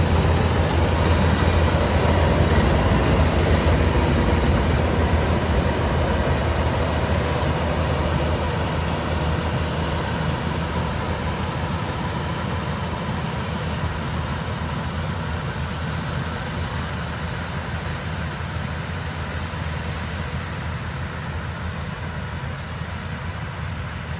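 Yanmar AW82V combine harvester running steadily with a deep engine hum and the machinery's noise, growing gradually fainter.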